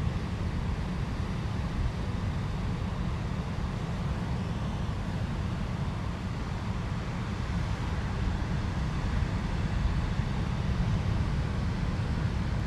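Wind on the microphone: a steady low rumble with a faint hiss above it.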